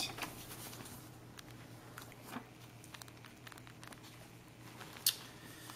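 Faint rustling and crinkling of a paper sheet and bubble-wrap packing being handled, with scattered light ticks and one sharper crackle about five seconds in, over a faint steady low hum.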